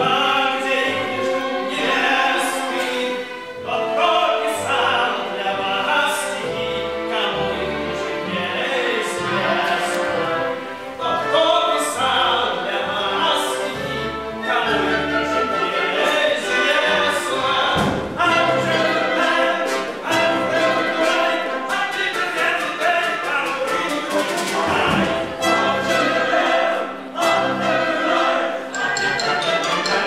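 Orchestra accompanying operatic singing in a stage musical number.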